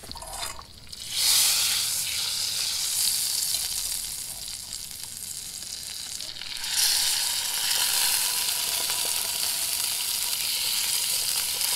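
Butter sizzling in a hot frying pan over a small canister camp stove. About seven seconds in, the sizzle grows louder as cutthroat trout fillets are laid into the fat.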